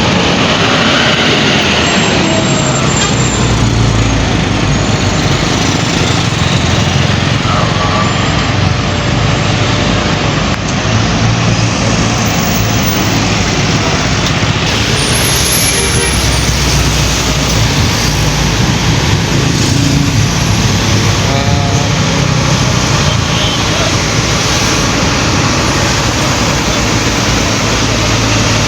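Busy road traffic with heavy buses and trucks running past, their engines humming low under a steady rush of road noise.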